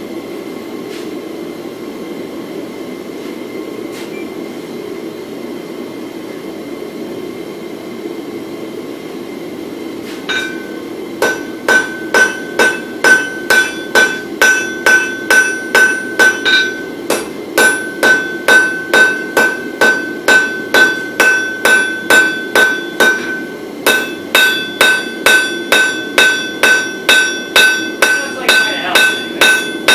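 Hand hammer forging a red-hot bar of wootz steel on an anvil, about two blows a second, each blow ringing the anvil with a steady high ring, with two short pauses between runs of blows. For the first ten seconds only a steady low rushing noise is heard before the hammering starts.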